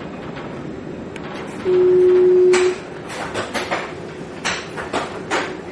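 Luas tram interior as the tram stands at a stop: low running rumble, then one steady electronic beep about a second long, the door signal, followed by a run of sharp clicks and knocks from the sliding doors working.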